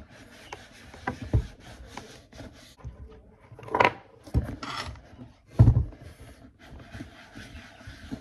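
Foam sponge rubbing balm into a black leather Dr. Martens boot, a soft scratchy scrubbing, with several short knocks as the boot and tin are handled, the loudest at about four and five and a half seconds in.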